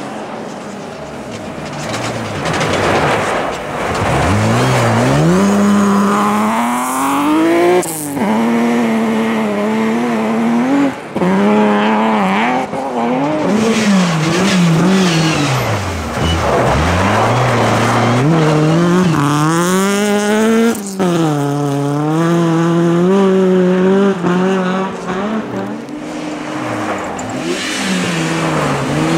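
Rally cars driving past one after another at speed, their engines revving high and falling back repeatedly through gear changes and lifts. The sound breaks off sharply a few times.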